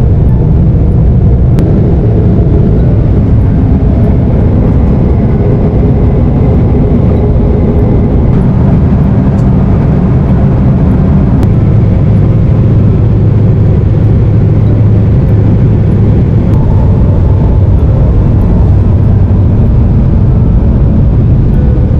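Airliner cabin noise: the steady low rumble of jet engines and airflow, heard from inside the cabin.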